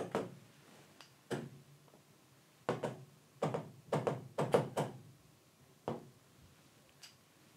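Stylus tapping on a large touchscreen display: about a dozen dull knocks in irregular groups, several coming in quick succession in the middle.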